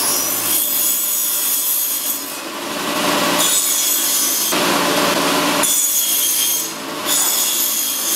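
A power saw cutting bundles of dried cinnamon quills into short pieces. It makes about five cuts in a row, each a second or two of sawing noise with a high whine over it, and short dips between the cuts.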